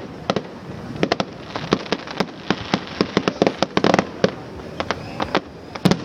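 Fireworks display: a rapid, irregular run of sharp bangs and crackling reports, thickest about four seconds in.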